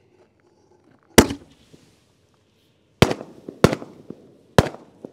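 Quadruple-break firework artillery shell: a sharp launch bang from the mortar tube about a second in, then its breaks bursting one after another in the air. Three loud reports come between about three and four and a half seconds in.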